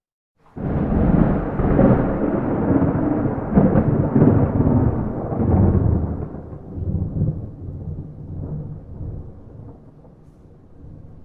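A thunderclap breaks out suddenly about half a second in, then a long rumble of thunder that swells several times and slowly fades, with no rain.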